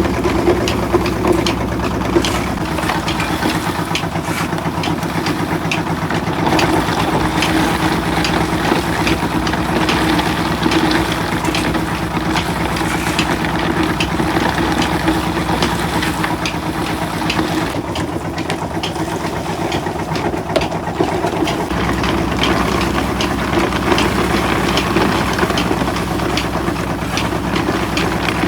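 Rock salt crushing machinery running steadily, a constant engine-like hum under rapid clicking and rattling.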